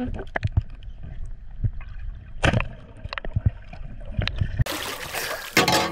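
Underwater recording of a band-powered speargun shot at a yellowtail: a muffled low rumble with scattered clicks and knocks, the sharpest and loudest crack about two and a half seconds in. About four and a half seconds in it cuts abruptly to a loud above-water hiss of wind and water.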